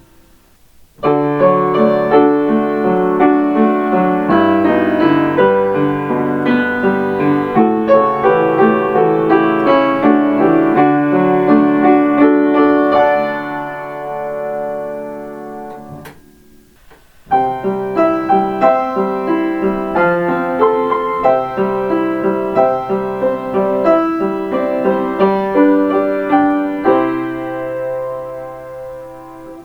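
Piano playing Kintetsu limited express onboard chime melodies, transcribed by ear. One melody starts about a second in and fades out after about thirteen seconds. After a short pause with a single click, a second melody starts about seventeen seconds in and rings out near the end.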